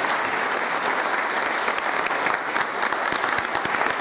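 A roomful of people applauding, a dense steady clapping in which single claps stand out more in the second half.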